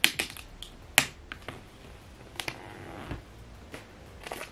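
Plastic shrink-film wrap being peeled off a MacBook Air box by its pull tab: a scattering of sharp crackles and snaps from the plastic, the loudest near the start and about a second in.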